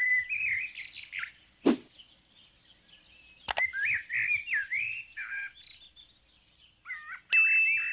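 Sound effects of a subscribe-button animation: cartoon-like bird chirps, a short whoosh about two seconds in, and a mouse click about three and a half seconds in. Near the end a bell dings and rings on.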